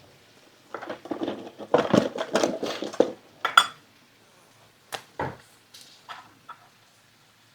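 Kitchen pans, dishes and utensils clattering and clinking: a busy run of knocks for about three seconds, then a few single clinks.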